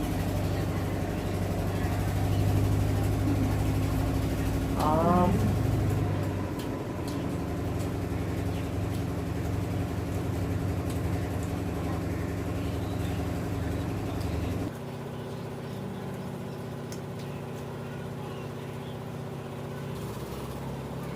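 A steady low mechanical hum, like a motor running, that drops in level suddenly about fifteen seconds in. A brief warbling chirp sounds once about five seconds in.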